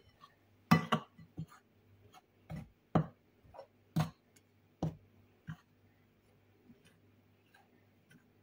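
Metal spoon knocking and clinking against a glass mixing bowl while stirring an egg into flour: a string of sharp taps in the first five seconds or so, then only faint ticks.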